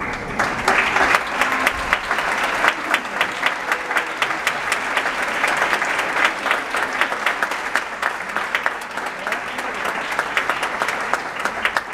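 Audience applauding: many hands clapping at once, dense and fast.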